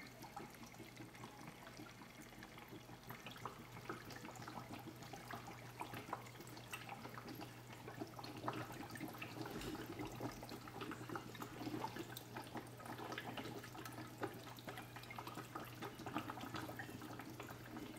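Faint water trickling and bubbling through a BRS dual media reactor's GFO and carbon canisters at low flow, with many small drips and crackles over a steady low hum.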